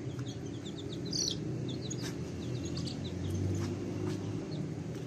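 Chicks and ducklings peeping: many short, high cheeps scattered throughout, with one louder call about a second in.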